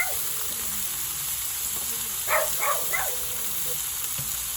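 A dog barks three times in quick succession about two seconds in, over a steady high hiss.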